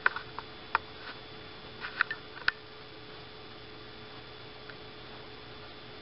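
Steady hiss with a faint constant hum, broken by about eight sharp clicks in the first two and a half seconds, after which only the hiss remains.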